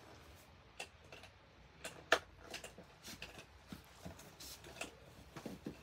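Scattered faint clicks and knocks of plastic and metal-tube parts being handled as the upper seat unit of a Mastela 4-in-1 bassinet-rocker is pulled off its rocker base, with one louder knock about two seconds in.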